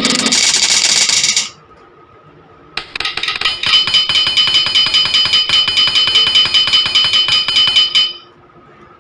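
Computer-played sound effects: a short noisy burst ending about a second and a half in, then after a pause a rapid run of metallic clinking strokes with a high ringing tone for about five seconds, stopping suddenly.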